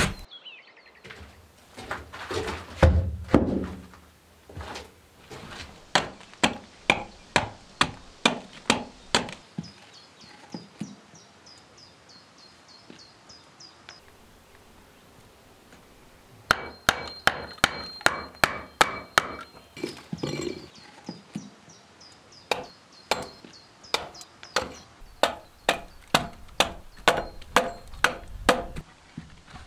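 A hand tool striking wood in runs of quick, sharp blows, about two or three a second, with pauses between the runs.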